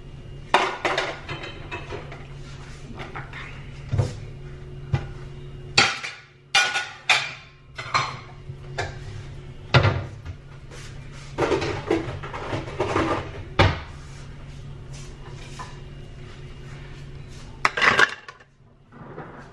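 Dishes and cutlery clattering at a kitchen sink: scattered knocks and clinks of plates and utensils being handled and set down, with a busier stretch of clatter about two thirds of the way in, over a steady low hum.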